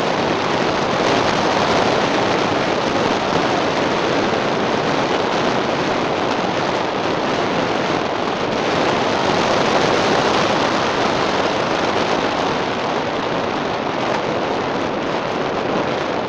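Steady rushing wind noise over the microphone, mixed with road noise, while moving fast along an asphalt road; no engine note stands out.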